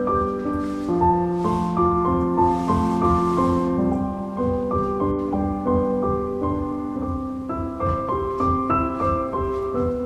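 Soft background piano music: a steady flow of single held notes and chords changing about every half second.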